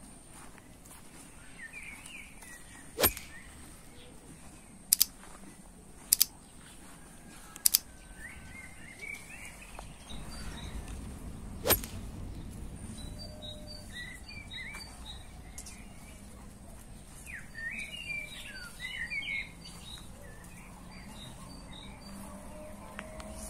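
Small birds chirping and twittering in short flurries, over a steady high tone. Five sharp clicks, three of them doubled, stand out as the loudest sounds in the first half.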